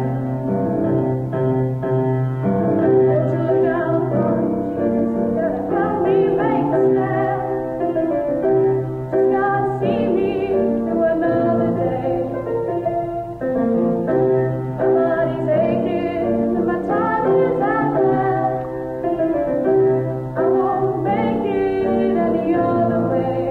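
Music: a singing voice with sustained, wavering notes over piano accompaniment.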